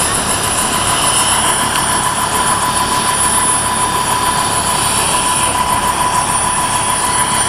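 Bell AH-1 Cobra helicopter running steadily, its turbine and rotor giving a continuous roar with a steady whine.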